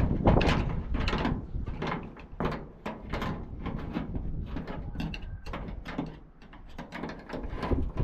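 A screwdriver levering and knocking at a small steel padlock: irregular metal clicks, knocks and rattles, with a brief metallic squeak about five seconds in.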